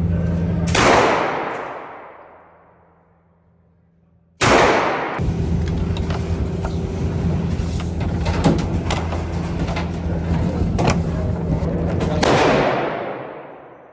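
Gunshots at a shooting range: a loud shot about a second in rings out and dies away over a couple of seconds. After a short lull, noise and a steady low hum return abruptly, with sharper cracks in between, and a second loud shot near the end fades out the same way.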